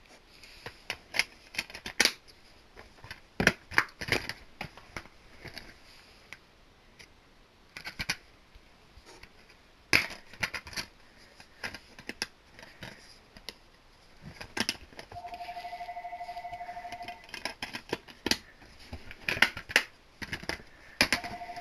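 Plastic DVD cases and packaging being handled: a string of sharp clicks, taps and light rattles. A steady buzzing tone sounds for about two seconds past the middle and starts again near the end.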